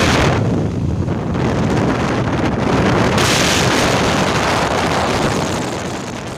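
Heavy wind buffeting the microphone of a phone held out of a moving passenger train, over the low rumble of the train running. The noise fades down near the end.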